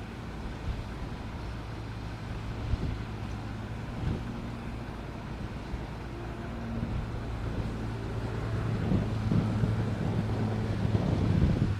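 Small propeller airplane's piston engine droning, growing louder toward the end as it nears, with gusty wind buffeting the microphone.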